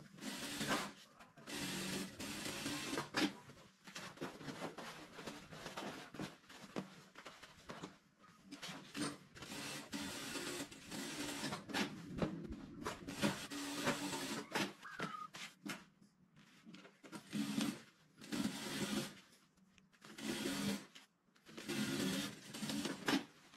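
JAKI industrial single-needle lockstitch sewing machine stitching brocade in repeated runs of a few seconds, stopping and starting again, with fabric rustling as the cloth is repositioned between runs.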